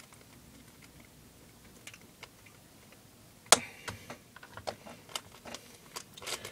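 Plastic 3x3 puzzle cube turned by hand, its layers clicking: a few faint clicks, then a sharp knock about three and a half seconds in, followed by a quick run of turning clicks.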